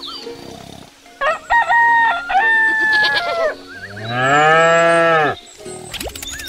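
A rooster crowing, a cock-a-doodle-doo in a few held steps, then a cow mooing in one long call that rises and falls away.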